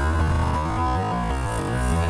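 Electronic background music led by synthesizer over a bass line.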